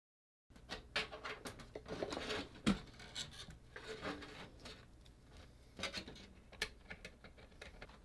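Hands working on a graphics card and its cables inside an open PC case: scattered light clicks, knocks and scraping rubs, starting about half a second in and busiest in the first few seconds.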